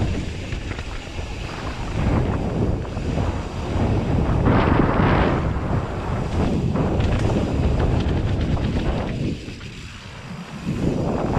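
Wind rushing over an action camera's microphone as a mountain bike descends fast on a dirt forest trail, mixed with the rumble of tyres over rough ground. The noise eases off for about a second and a half near the end, then comes back.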